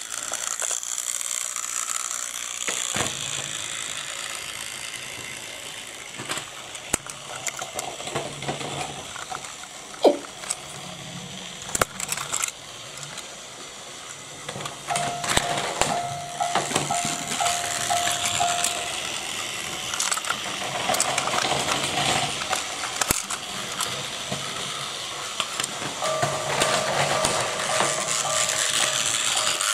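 Battery-powered Plarail toy train motors whirring with their plastic gears clattering, mixed with sharp clicks and knocks as the plastic toy vehicles are handled and set on the track. A steady tone sounds for a few seconds in the middle and again near the end.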